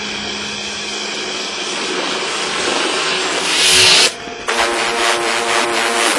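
A steady rushing noise over a low hum, swelling to a peak about four seconds in and cutting off suddenly; about half a second later music with a beat comes in.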